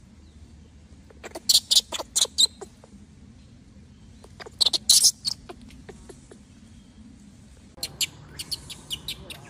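Infant rhesus macaque giving short, high-pitched distress squeals in three quick clusters: about a second in, around four and a half seconds, and near the end.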